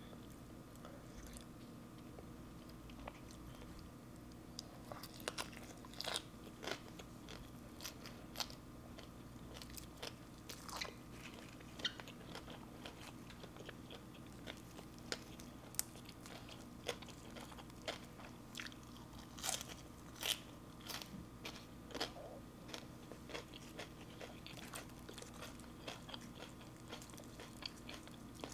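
Close-miked chewing of sticky rice and crisp raw leafy greens, with sharp crunches and clicks at irregular intervals. A faint steady hum runs underneath.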